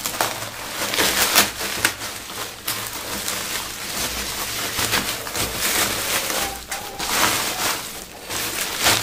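Bubble wrap rustling and crinkling in the hands as a white metal clothes hanger is unwrapped from it, an uneven run of crackles.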